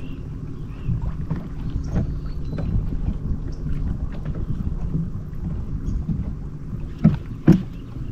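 Steady low rumble of a slowly trolling fishing boat, with wind on the microphone. About seven seconds in come two sharp knocks half a second apart as a rod in the metal rod rack is handled.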